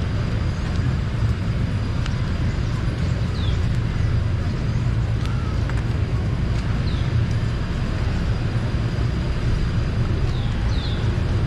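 Steady low rumble and hiss of outdoor street ambience, with a few short high chirps every few seconds.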